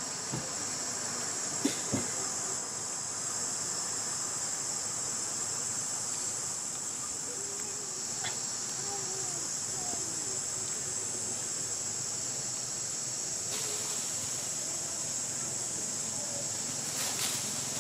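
Insects giving a steady, high-pitched drone that runs on without a break. Two sharp clicks come about two seconds in.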